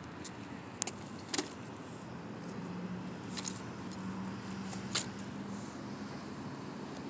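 An umbrella stroller's metal frame clicks and rattles a few times as a toddler grabs and pushes its handles, over the steady low hum of a car going by.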